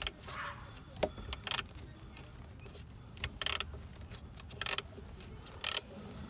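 Ratcheting screwdriver with a Torx bit clicking in short bursts, about one a second, as it drives in a T25 screw.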